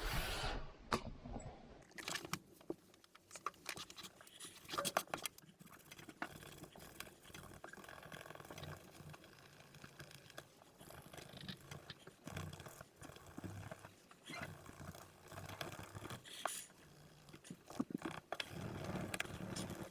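Spyderco Salt 1 knife with an H1 steel blade and a dual grit edge being drawn through a thick, stiff rope in repeated slicing strokes, the edge scraping through the fibres. The sound is faint and comes and goes.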